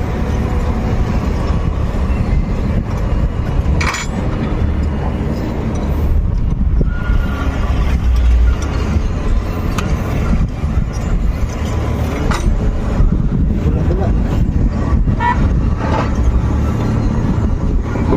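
Diesel engine of heavy equipment running steadily, with a deep low rumble and a few short sharp knocks or clinks.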